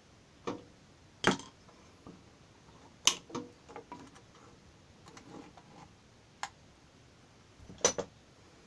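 Metal tools and loose metal parts clinking and knocking during motorcycle disassembly: a handful of sharp, irregular strikes, some ringing briefly, the loudest about a second in, about three seconds in, and a double knock near the end.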